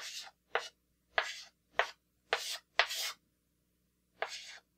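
Chalk scraping on a blackboard in about seven short strokes as grid lines and digits are written, with a pause of about a second before the last stroke.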